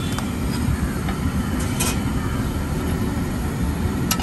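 A paratha frying in butter on a large flat tawa, with a few sharp clicks of the metal spatula against the griddle as it is turned, over a steady low rumble.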